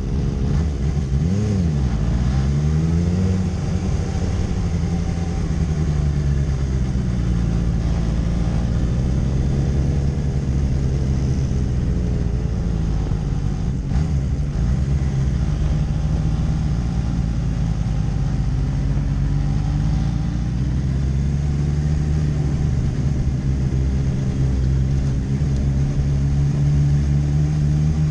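Kawasaki sport bike's inline-four engine heard from onboard at low road speed. Its pitch swoops up and down in the first few seconds as the revs change, then runs fairly steady with slow rises and falls, over wind buffeting on the microphone.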